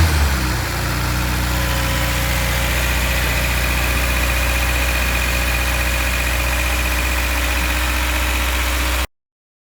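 Subaru BRZ's flat-four engine just after starting. It settles within the first second into a steady idle, and the sound cuts off abruptly near the end.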